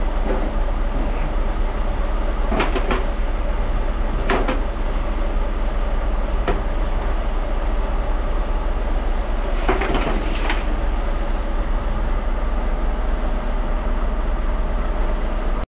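An engine running steadily with a droning hum, broken a few times by sharp knocks or crackles.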